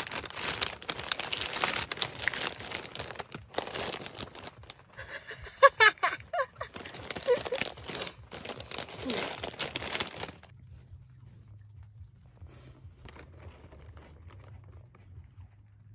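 Plastic snack bag of corn chips crinkling and tearing as it is handled and torn open wide, a dense rustling that goes on for about ten seconds, with a brief voice about halfway through. It then stops abruptly, leaving a quiet low hum.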